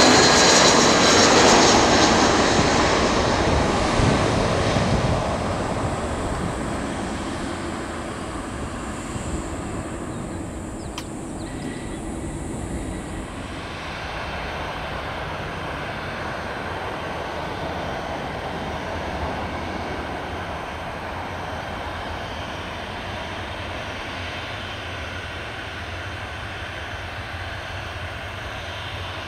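Airbus A321 jet passing low overhead on landing approach: its engine whine drops in pitch and fades over the first several seconds. It gives way to the steady, quieter hum of a Boeing 737's jet engines as it taxis.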